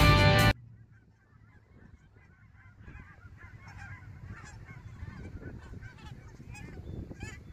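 Guitar music cuts off about half a second in, giving way to a large flock of Canada geese honking, with many overlapping calls that grow louder from about three seconds in.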